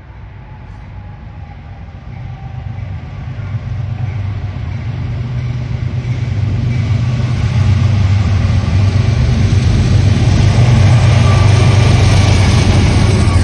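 Diesel locomotive approaching, its deep engine rumble growing steadily louder over about eight seconds and then staying loud as it draws near.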